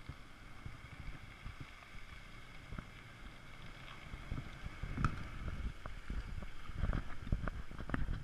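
Toyota Tacoma pickup crawling past on a rocky dirt trail: its engine running low under tyres crunching over gravel and stones, with a few sharp clicks of stones. The sound grows louder from about halfway as the truck draws alongside, with wind buffeting the microphone throughout.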